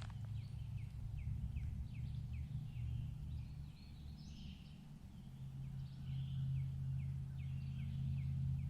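Distant thunder rumbling low and steady, swelling about five seconds in, while a songbird repeats short downslurred chirps about twice a second.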